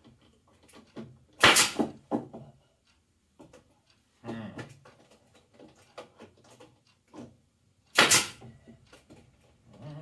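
Pneumatic quarter-inch crown stapler firing twice, about six and a half seconds apart, each shot a sharp report lasting about half a second as it drives staples into the wooden beehive box. Quieter knocks of the wood being handled in between.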